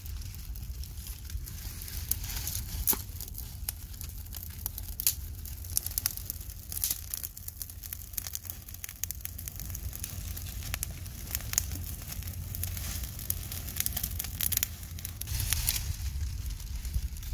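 Aluminium foil crinkling and hot embers crackling as metal tongs shift a whole pumpkin roasting in the ashes: many irregular sharp clicks and crinkles over a low steady rumble.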